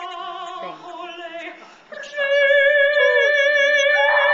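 Puppy howling. Softer broken notes give way about halfway through to a loud, long held note with a slight waver.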